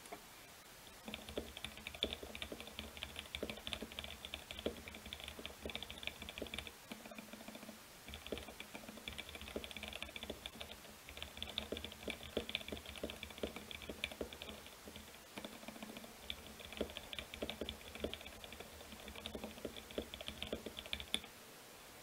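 Fast typing on a Mercutio 40 mechanical keyboard fitted with lubed and filmed Alpaca linear switches and foam between bottom plate and PCB: a dense, steady stream of key presses that starts about a second in, pauses briefly twice, and stops shortly before the end.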